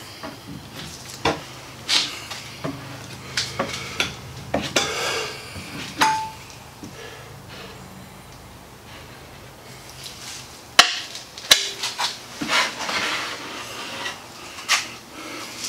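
Plastic spreader scraping and tapping as epoxy fairing compound is scooped off a mixing board and skimmed over the hull, with scattered knocks and two sharp clicks in the middle.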